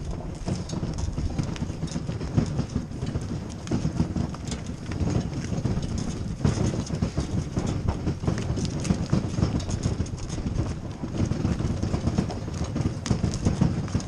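Hooves of a harnessed driving mare and a ponied colt clip-clopping at a walk on a dirt track, with the light rattle of the cart and gusty wind rumbling on the microphone.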